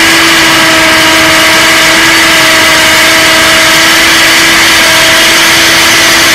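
Cordless 21V hammer drill in concrete mode boring into a concrete block: the motor runs at a steady high whine under loud, dense drilling noise, without letting up.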